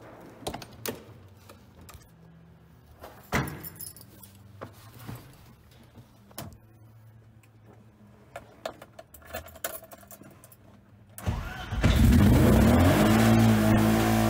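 Keys jangling and a few knocks, then a BMW M20 2.5-litre straight-six cranks about 11 seconds in, catches within a second and runs loudly with its pitch rising and falling as it is revved. The engine has been judged not to sound healthy and is later found to have self-destructed.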